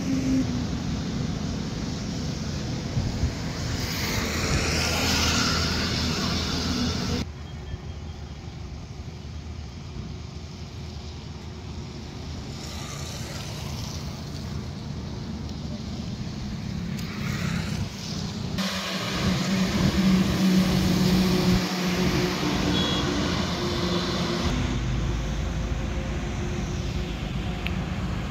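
Road traffic noise: a steady rumble of passing vehicles, with the background changing abruptly three times as the field recording is cut.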